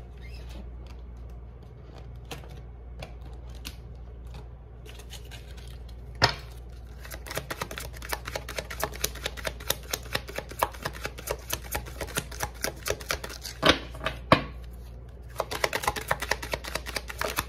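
A deck of oracle cards being shuffled by hand: a fast run of light card flicks and slaps begins about six seconds in, with a few louder knocks. It stops briefly near the end, then starts again.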